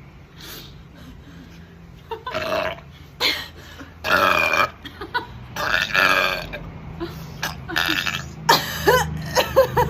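A woman burping loudly several times in a row after gulping a foamy drink, the longest burps coming between about four and six seconds in.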